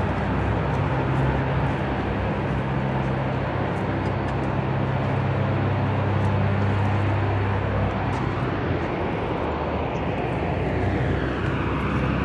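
Steady drone of a nearby aircraft engine running, with a low steady hum; near the end its tone sweeps up and down.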